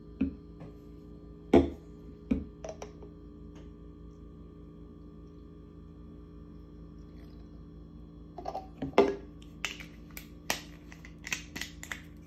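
Plastic bottles and screw caps handled on a hard countertop: a few sharp clicks and knocks in the first three seconds, a quiet stretch, then a quick cluster of taps and knocks near the end. A faint steady hum runs beneath.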